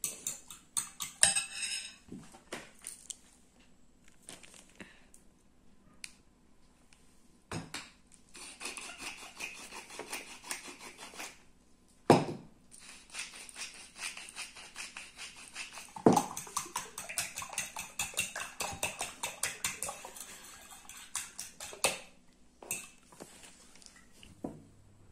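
Metal utensil beating raw eggs in a ceramic bowl: fast, rhythmic clicking and scraping against the bowl, in long runs with short pauses and a few louder knocks.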